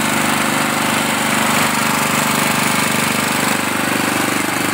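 Wheel Horse 211-5SB lawn tractor's 11 HP Briggs & Stratton I/C single-cylinder engine running steadily just after its first start on a replacement starter. It runs smoothly.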